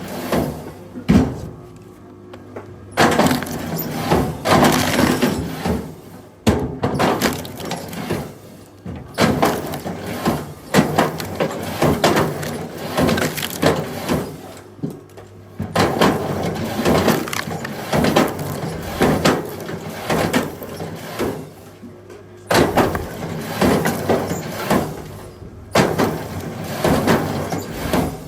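Pieces of firewood knocking and clattering against each other, many wooden knocks in quick, irregular succession, with a faint steady hum underneath.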